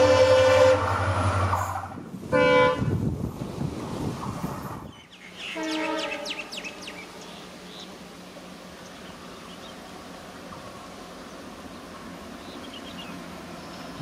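EMD WDP-4 diesel locomotive's horn sounding from the train: a long blast that stops about two seconds in, a short blast just after, then another short blast about six seconds in. A steady, quieter running rumble follows.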